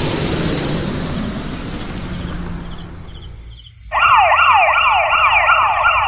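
A hiss fades over the first few seconds. About four seconds in, a loud siren-like warble starts suddenly: rapid, evenly repeated falling glides, about three a second.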